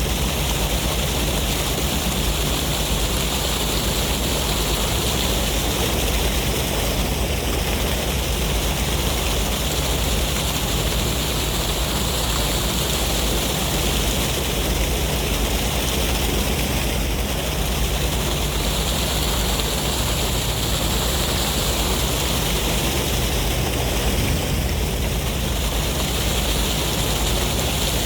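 Sea waves and sea breeze: a steady, unbroken wash of surf noise with a deep rumble underneath.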